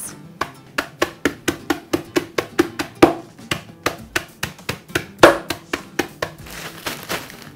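A metal meat mallet pounding Oreo cookies inside a plastic zip-top bag on a wooden cutting board, crushing them into chunks with quick blows about four a second. Two harder blows land about three and five seconds in.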